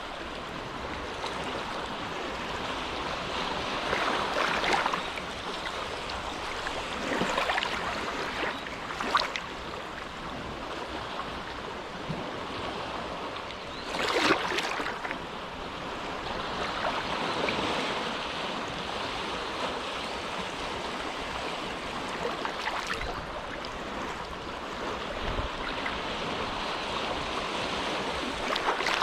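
Small, calm waves lapping at the shore of a sheltered inlet, a steady wash with a louder splash every few seconds, the biggest about halfway through.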